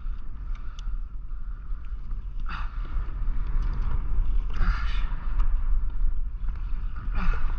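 Wind buffeting the microphone in a steady low rumble, with three short rushing bursts of noise.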